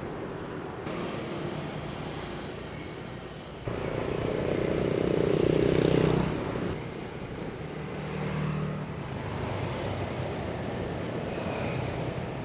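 Street traffic with vehicle engines running. One vehicle passes close, rising suddenly about four seconds in and loudest around six seconds, then fading back into the traffic.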